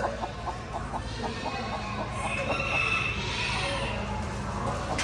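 Chickens clucking in quick short notes, about four a second, with a rooster crowing about two seconds in.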